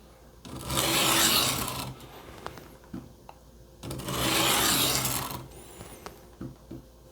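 A steel kitchen knife blade slicing across a wet Work Sharp benchstone sharpening stone, making a gritty scraping hiss. Two long strokes, about a second and a half each and some three seconds apart, as the edge is ground to raise a burr.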